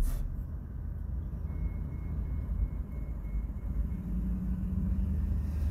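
Low, steady vehicle rumble, with a faint high whine in the middle and a low hum joining near the end.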